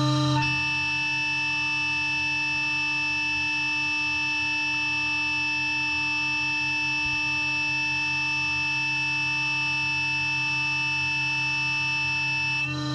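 CNC router spindle at 18,000 RPM with a Bravo router bit cutting 18 mm multi-layer birch plywood: a steady whine made of several fixed tones. The mix of tones shifts about half a second in and again near the end.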